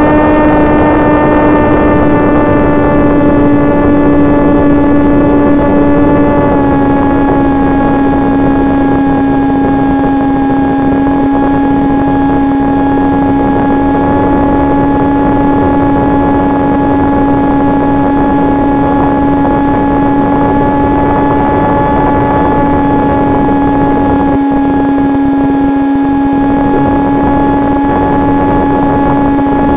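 Electric motor and propeller of an AR900 FPV flying wing running at steady throttle, a loud droning whine over a rush of wind noise, as heard from the onboard camera. The pitch steps down slightly about six seconds in as the throttle is eased.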